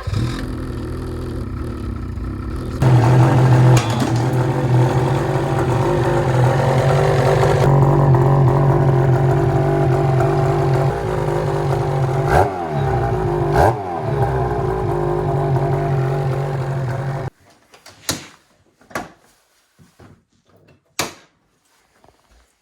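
Ski-Doo 850 two-stroke twin snowmobile engine running through a freshly fitted MBRP Race exhaust can, given two short throttle blips a little past the middle. The engine sound cuts off suddenly about seventeen seconds in, leaving a few light knocks and clatter.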